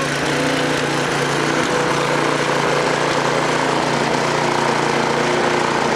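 Small gasoline engine running steadily at idle, skipping and putting a little as it goes.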